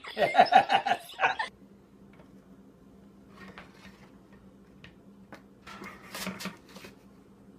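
A loud, drawn-out whining voice for about the first second and a half. Then faint clicks and a short scraping, as a metal spatula scrapes cookies off a metal baking sheet about six seconds in.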